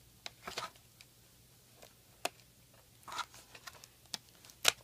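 Small scissors snipping at a toy package to cut a doll's shoe free from its cardboard backing: a handful of scattered sharp snips and clicks with short rustles of card between them, the sharpest near the end.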